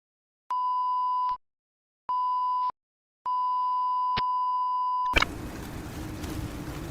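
Three electronic beeps at one steady pitch, the third the longest, then a sudden cut to a steady rumbling noise with a low hum.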